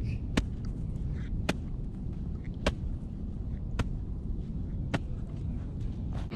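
Golf wedge chopping into a patch of weeds in the turf, six sharp strikes about once a second over a steady low rumble.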